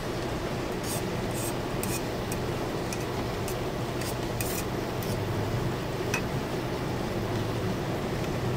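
Knife scraping and tapping inside a stainless steel cup: a run of short, light scrapes and clicks during the first half, a few more later. A steady low hum sits underneath.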